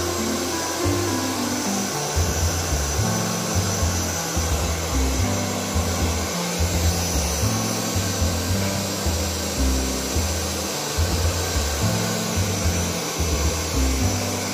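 Handheld hair dryer blowing steadily into a dog's wet fur, over background music with a low, pulsing bass line.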